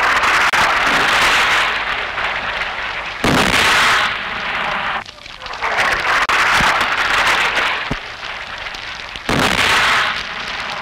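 Battle sound effects from a war film: a dense din of explosions and gunfire that changes abruptly about three seconds in and again near the end, with a falling whistle around the middle.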